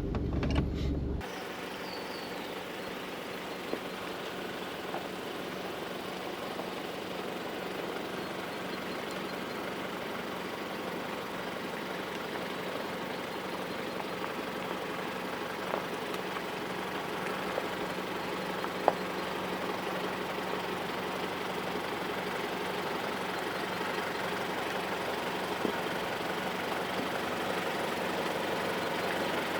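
4WD vehicle's engine running steadily while crawling along the track, with a few isolated light knocks.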